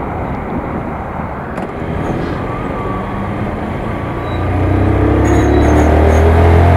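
Riding noise from a Honda CBR125 motorcycle moving in slow traffic: steady engine and road noise. About four seconds in it gets louder, with a heavy low drone and a slowly rising engine note as the bike filters alongside a lorry.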